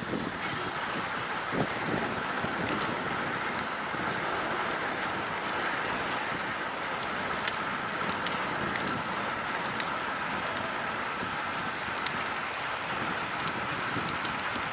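Steady rush of wind buffeting the microphone while riding a road bike, with tyre and road noise underneath and scattered faint ticks.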